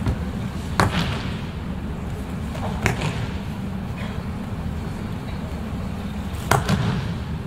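Three sharp slaps and thuds of bodies hitting tatami mats in aikido breakfalls as attackers are thrown, about a second in, near three seconds, and near the end, over a steady low hum of a large hall.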